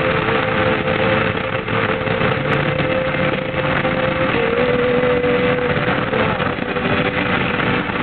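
A vehicle driving at highway speed: steady, loud road and wind noise with a constant engine drone whose pitch steps up slightly about halfway through.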